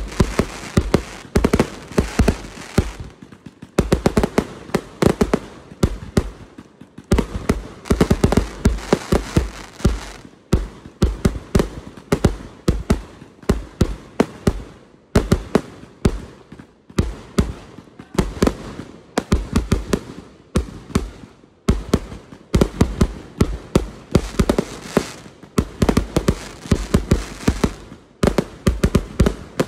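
Aerial fireworks going off in a rapid run of sharp bangs as shells burst overhead, several a second, with brief lulls every few seconds.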